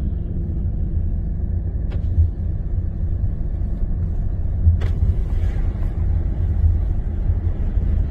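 Kia Carnival minivan driving along a paved road: a steady low rumble of engine and tyre noise, with a light click about two seconds in and a sharper one near five seconds.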